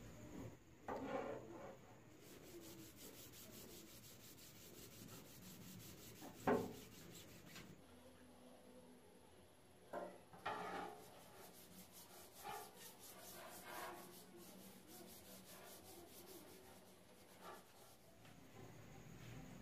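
Cloth rubbing oil into a wooden axe handle: faint, intermittent wiping and scuffing strokes, with a few louder brushes.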